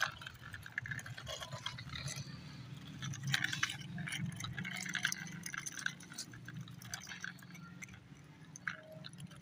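Plastic wheels of a toy tractor and trolley rolling and scraping over rough concrete, making irregular gritty clicks and scrapes.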